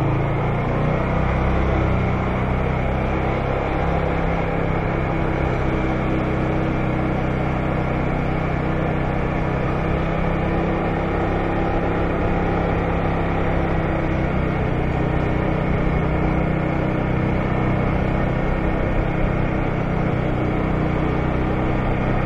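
Honda scooter engine running steadily at a constant low speed while riding, a continuous even hum.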